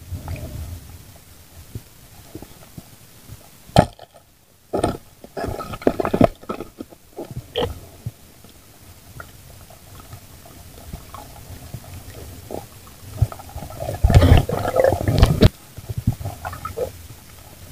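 Muffled underwater sounds of spearfishing, heard through a camera housing: a sharp knock, then irregular bursts of rushing and knocking as a speared fish struggles on the spear, and a louder stretch of rushing water noise later on.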